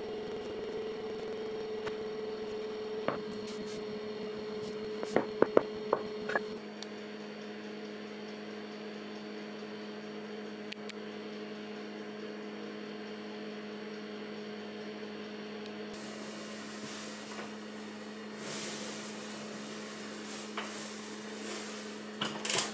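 Steady electrical hum of kitchen appliances, with a few light knocks on a wooden bench in the first few seconds as pastry is rolled. A steady hiss joins in later, and a short metal clatter comes near the end at the oven.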